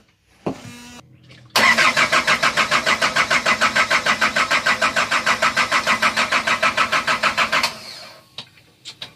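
Nissan 2.5-litre four-cylinder marine diesel cranked on its starter for about six seconds, with an even chug of about seven or eight compression beats a second, without catching. The engine will not fire because the fuel lines are still being bled of air at the injectors. The cranking cuts off abruptly and is followed by a few light clicks.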